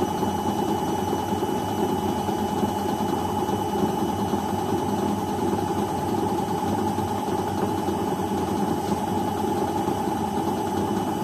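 Beko front-loading washing machine running, its motor and drum making a steady hum with a faint held whine.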